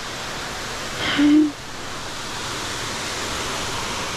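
Waterfall rushing in a steady, even roar of falling water. About a second in, a brief short vocal sound is heard over it.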